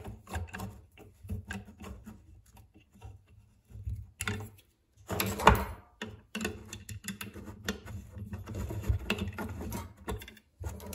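Irregular small metal clicks and clinks as an Allen key and an open-end wrench turn the screws and nuts of a makeshift puller on a cooling-fan motor, slowly pressing the fan blade off the motor shaft. The loudest knock comes about five and a half seconds in.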